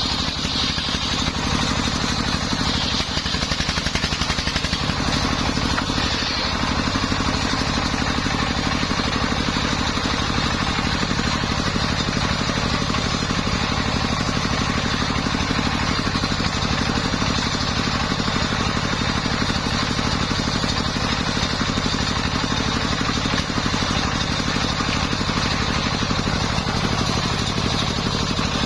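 Engine of a portable circular sawmill running steadily, with a continuous high whine above the engine note.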